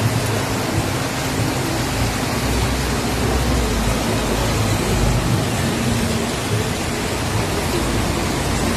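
Heavy rain pouring down over flooded streets, with water rushing: a steady, dense hiss and a low rumble underneath.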